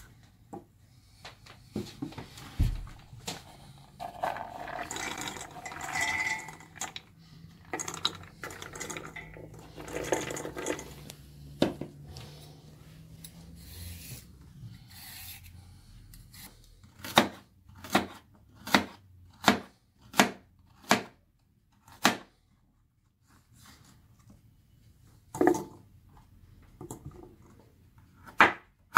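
Kitchen prep sounds: rustling and clattering as ingredients go into a stainless steel pot, then a knife cutting a carrot on a wooden cutting board in a run of sharp knocks, about seven in a row roughly two every 1.5 seconds, and a couple more near the end.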